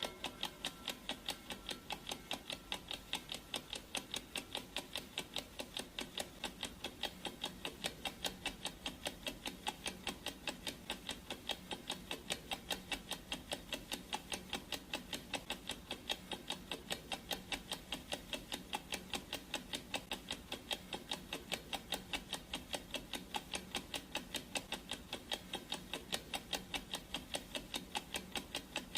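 Clock ticking sound effect of a countdown timer: crisp, even ticks, several a second, keeping a steady pace.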